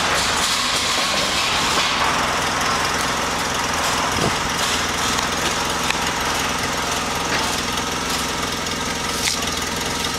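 An engine idling steadily at a constant pitch, with a couple of light knocks partway through.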